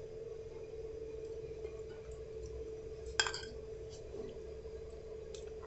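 A metal spoon clinks once, sharply, against a dish about three seconds in, with a short ring after it and a few faint ticks later, over a steady low hum.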